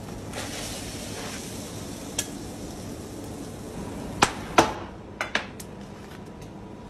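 A large kitchen knife knocking against a wooden cutting board, about five sharp knocks, the loudest two a little past four seconds in, over a steady background hum.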